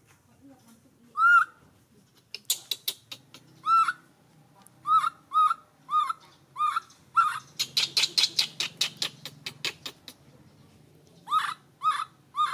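Baby macaque giving short, high, arched squeaky calls, repeated a dozen or so times at irregular intervals, with a fast run of sharp squeaks about eight seconds in.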